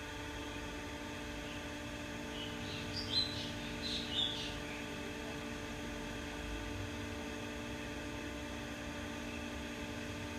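CMC Niko 48-inch industrial ceiling fan running, its motor giving a steady hum. A few short high chirps sound briefly about three to four seconds in.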